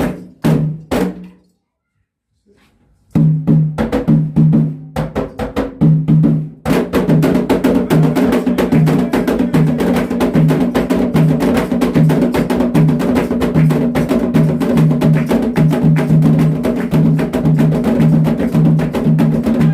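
Percussion music: fast drumming with sharp wood-block-like clicks over repeating low drum tones. It drops out briefly about a second in, comes back about three seconds in, and grows fuller and denser from about seven seconds on.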